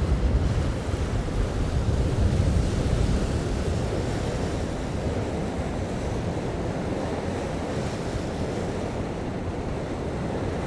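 Wind buffeting the microphone over the rush of water from a motor yacht under way: a steady, rumbling noise, a little louder for the first few seconds.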